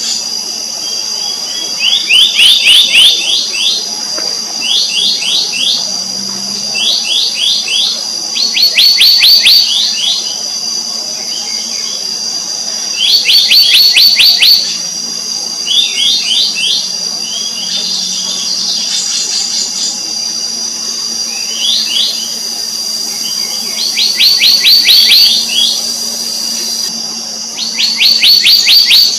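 Black-naped monarch calling: about a second of rapid, sharp ringing notes at a time, repeated every few seconds. A steady high-pitched whine and a faint low hum run underneath.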